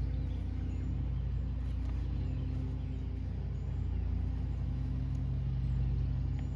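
A motor running with a steady low drone.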